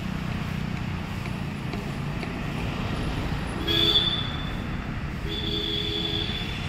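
Scooter engine running steadily at low speed while it is ridden. A horn-like tone sounds briefly about four seconds in, then again for about a second near the end.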